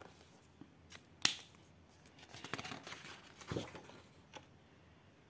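Felt-tip marker scratching softly across thick colouring-book paper in short, slow strokes, with one sharp click about a second in.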